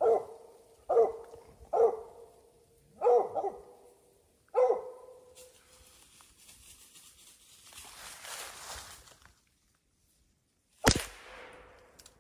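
Mountain Cur squirrel dog barking, five short barks spread over the first five seconds. Near the end there is one sharp crack.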